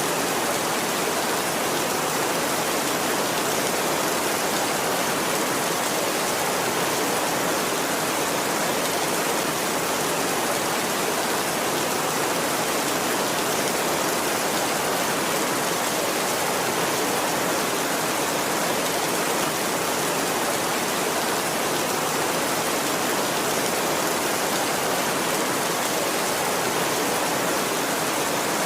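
Heavy rain falling steadily on a tin roof, an even wash of noise with no thunder.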